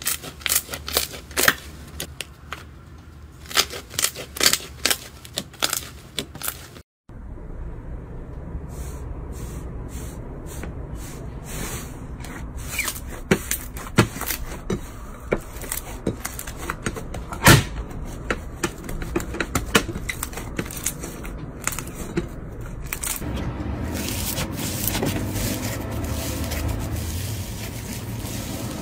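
Slime being squeezed and poked by hands, with many sharp clicking pops of trapped air, over several short clips that cut abruptly about a quarter of the way in.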